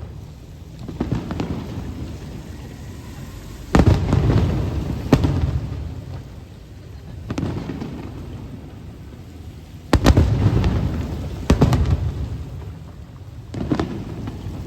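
Aerial firework shells bursting overhead, about six deep booms at uneven intervals, each trailing off in a low rumbling echo. A steady patter of rain runs underneath.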